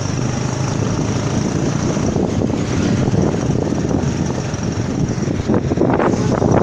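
Steady low rumble of a moving vehicle's engine and road noise, a little louder from about two seconds in.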